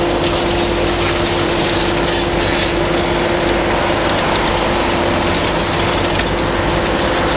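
Heavy demolition excavator running steadily, with a constant hum-like tone over the engine noise. Faint crackling of breaking debris from the jaw attachment comes through about one to three seconds in.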